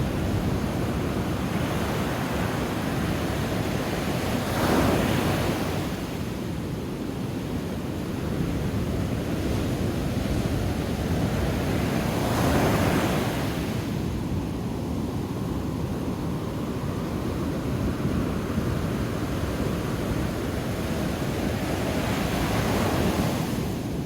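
Heavy storm surf, large ocean waves breaking and washing in, swelling louder three times as big sets crash, with wind rumbling on the microphone. It is a rough sea stirred up ahead of an approaching hurricane.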